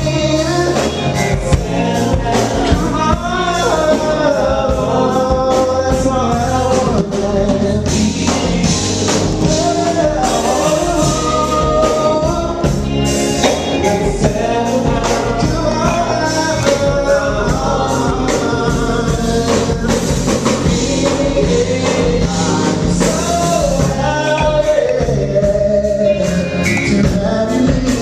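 A live funk band plays with a lead vocal sung over bass and drums.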